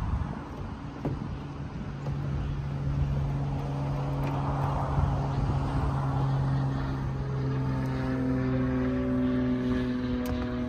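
A 2014 BMW 428i Convertible's retractable hardtop folding down: its electric roof pump runs with a steady hum as the trunk lid lifts and the roof panels stow. In the second half, higher tones come in and shift in pitch as the panels move.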